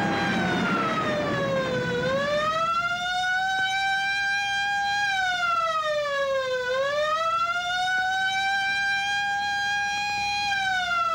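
Emergency siren wailing in long, slow sweeps, its pitch sagging and climbing back about every five seconds: the alarm for a crash landing on an airfield. A rush of noise under it fades out over the first two seconds.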